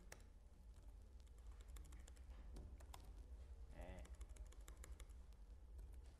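Faint laptop keyboard typing: irregular, quick key clicks.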